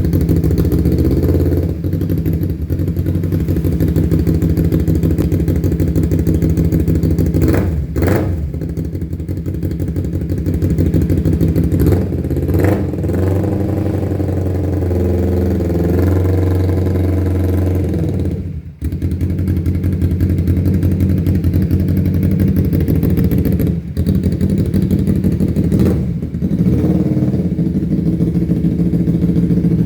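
Kawasaki Ninja 250 FI parallel-twin engine running in a 'helicopter' setting, with a steady, even chopping beat. The engine note dips briefly several times, most deeply a little past halfway.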